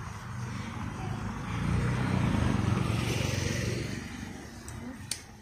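A motor vehicle passing by, its engine and road noise rising to a peak about two to three seconds in and then fading away. A single sharp click near the end.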